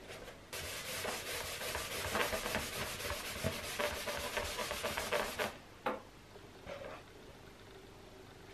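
A rubber balloon and a ping pong ball rubbed briskly back and forth against a fabric blanket to charge them with static electricity, a rough scratchy rubbing that stops about five and a half seconds in, followed by a light tap or two.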